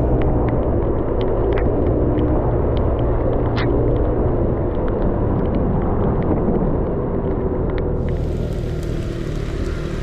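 Aprilia SXR 50 scooter on the move: a heavy, steady rumble of wind on the microphone over the running engine, with scattered small ticks. A higher hiss comes in near the end.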